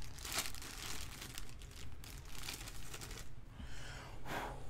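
Clear plastic bag crinkling and rustling in the hands as a statue head is unwrapped from it, with irregular crackles throughout.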